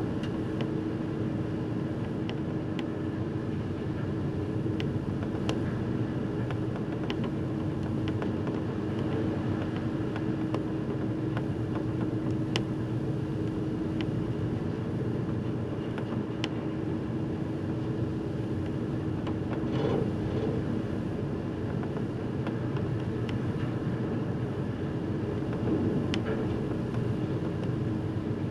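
Steady low drone of a car ferry under way: engine and hull rumble with a constant hum over a wash of sea noise, with occasional faint ticks and a brief swell in loudness about twenty seconds in.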